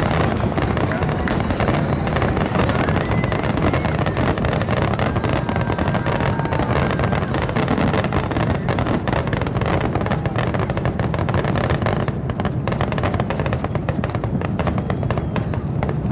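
Fireworks display in a dense, continuous barrage: rapid overlapping booms and crackling pops with no break, with a deep rumble underneath.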